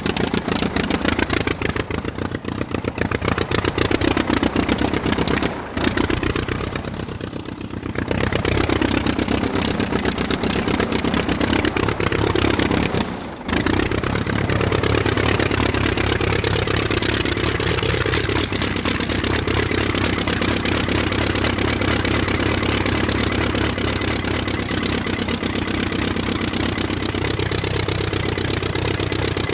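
Aircraft engine running steadily, its pitch wavering slightly, with brief drops in level about six and thirteen seconds in.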